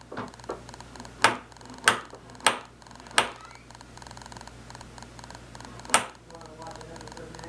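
Sharp clicks of wire and hand tool on metal: about one every half second to second for the first three seconds, then one more about six seconds in. They come from a tight tie wire being worked loose around a lathe lead screw.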